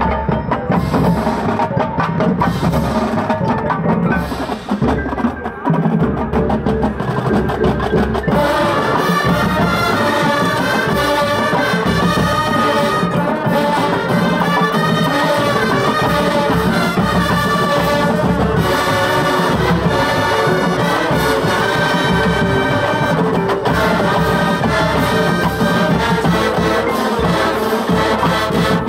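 College marching band playing its halftime show: percussion leads for about the first eight seconds, then the full band with brass comes in and plays on.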